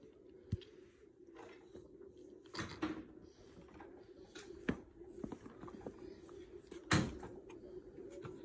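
Paper gift bag rustling and crinkling as a small child's hand rummages inside it, with a few soft knocks, the loudest about seven seconds in, over a faint steady hum.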